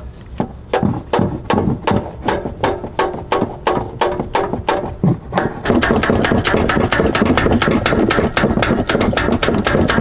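Repeated metal-on-metal blows from a tool banging on a corroded Chevy truck starter motor, about three a second and quickening about halfway through: the 'smack test' on a starter whose solenoid S terminal is energized. The starter does not crank, which confirms it as faulty.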